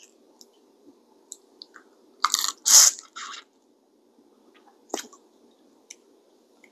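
Close-miked eating of a seafood boil: wet, crunchy bites and chewing of shrimp and crawfish, loudest in a short cluster a little after two seconds in, with a sharp click about five seconds in and small ticks between.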